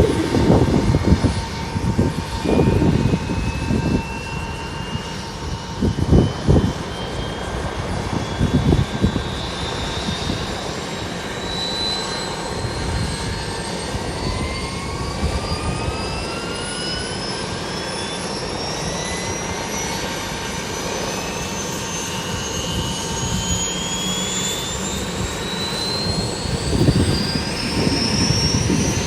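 Bell 205 helicopter turboshaft turbine whine climbing slowly and steadily in pitch as it spools up, a second rising whine joining about halfway through, over a steady high tone. Gusty low rumbling comes and goes on top, loudest in the first few seconds and near the end.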